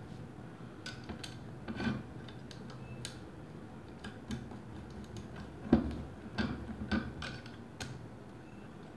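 Light, irregular clicks and small knocks of a Flycam handheld stabiliser's top camera stage and its thumb screws being handled and screwed on by hand. The most prominent knock comes a little before six seconds in, with a cluster of clicks just after.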